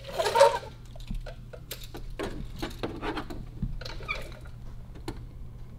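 Light, irregular clicks and taps of a tape measure being handled while measuring the gap between the top of a tire and the inner fender above it.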